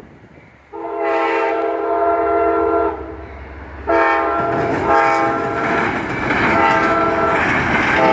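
Amtrak passenger locomotive air horn sounding a chord: one long blast from about a second in, a short pause, then a second long blast that breaks into shorter toots. Beneath the later blasts the passing train's rumble grows.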